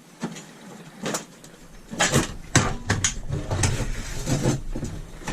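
Metal knocks and rattles, thickening about two seconds in, as a scrapped gas boiler's casing and parts are handled, over a low rumble.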